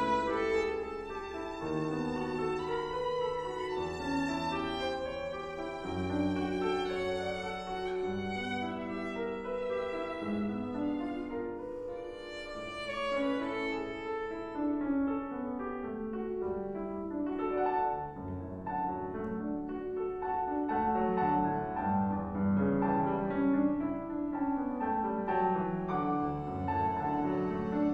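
Violin playing a melody of held, bowed notes, accompanied by a grand piano.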